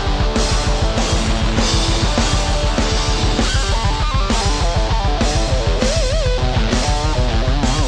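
Electric guitar distorted by a Suhr Riot high-gain distortion pedal, playing a metal riff over drums with fast, steady kick-drum beats. About halfway through it moves into a lead line of quick notes with a wide vibrato on a held note.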